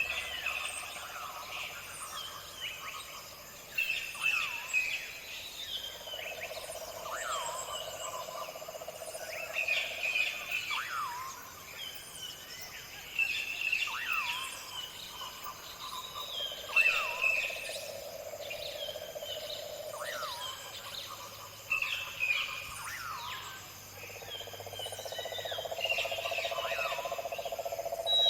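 Rainforest-style nature ambience: several birds chirping and whistling over one another, with a buzzing chorus that swells in and fades out three times.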